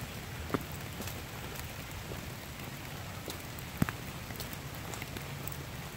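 Steady, hard rain falling on the forest foliage and the trail, with two sharp taps about half a second in and near four seconds in.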